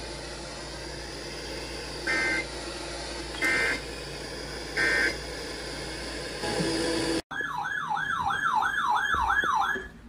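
An emergency alert broadcast over a hissing receiver: three short screeching data bursts of the EAS header, a little over a second apart, then after a sudden cut a loud warbling alert tone sweeping up and down about three times a second, like a siren.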